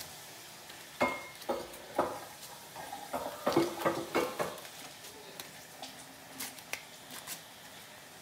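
Light handling noise from handmade toys being fitted back into their cases: a run of small knocks and rustles in the first half, thinning to a few faint ticks.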